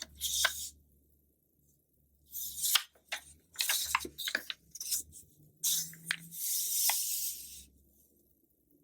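Glossy magazine pages being handled and turned: separate bursts of crisp paper rustling and crackling, with a longer sliding swish of a page about six seconds in.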